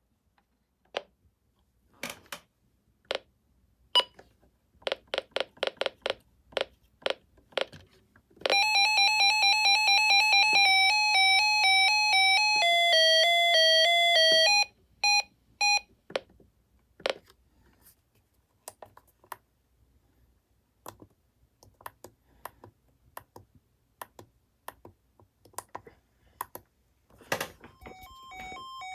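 An electronic siren from a radio: a fast-pulsing beep for about two seconds, then a stepping two-note electronic pattern for about four seconds that cuts off suddenly, followed by a few short beeps. Scattered sharp clicks come before and after it, and near the end a second alternating high-low siren tone starts.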